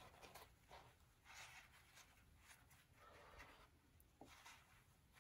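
Near silence, with faint soft rustling of a damp paper towel being folded and pressed by hand, a couple of brief swishes.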